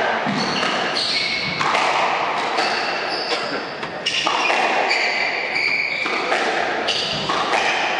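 Squash rally: the ball cracks off rackets and bounces off the walls and wooden floor about once a second, with court shoes squeaking on the floor between hits, echoing in the enclosed court.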